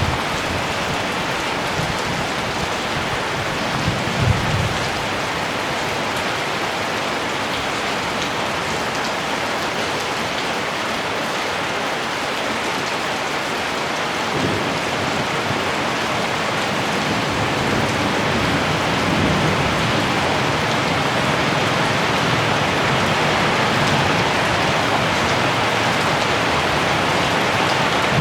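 Heavy rain falling steadily, with a few low rumbles of distant thunder, the first about four seconds in.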